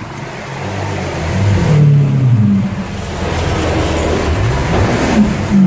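Lamborghini Aventador's V12 engine running and being revved, its pitch falling about two seconds in and rising and falling again near five seconds. It grows louder over the first two seconds.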